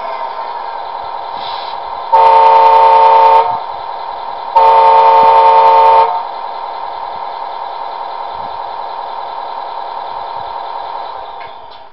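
Scania R620 truck sound effects: a horn sounds twice, each blast about a second and a half long, over a steady, bass-less engine drone that fades out near the end.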